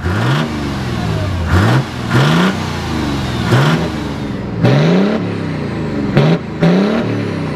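Tuned Mercedes 190D with a swapped 3.0 24-valve diesel and a big HX35 turbo, revved repeatedly at a standstill, about once a second: each rev climbs quickly and drops straight back, with a short blast of exhaust at the top.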